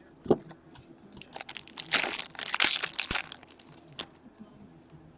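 Crinkling and crackling of a trading-card pack wrapper being handled, loudest about two to three seconds in, with a few sharp clicks before and after.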